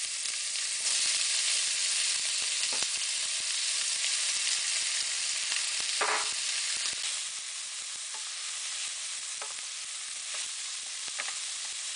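Diced white onions sizzling steadily in hot olive oil in a stainless steel pan, easing a little in the second half. A few light knocks and scrapes come from a wooden spoon stirring them.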